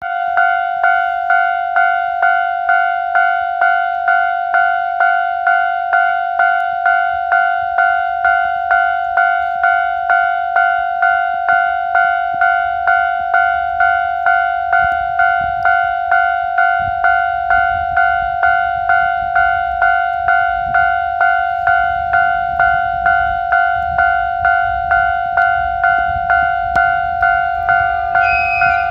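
Japanese level crossing warning bell ringing, an electronic ding repeated just under twice a second. From about halfway through, a low rumble grows underneath it as the DE15 diesel locomotive with its Russell snowplough approaches, and a second pitched sound joins near the end.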